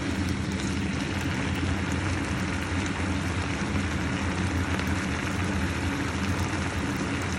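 Beef stew in a pan bubbling and sizzling steadily, over a steady low mechanical hum.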